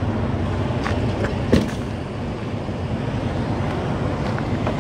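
Steady low rumble of a running vehicle with wind on the microphone, and one sharp knock about one and a half seconds in.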